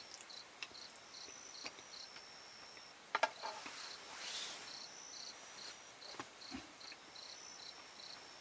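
Crickets chirping in a steady pulsing rhythm, a few chirps a second, over a thin continuous high trill from other insects. A few light knocks sound through it, the loudest about three seconds in.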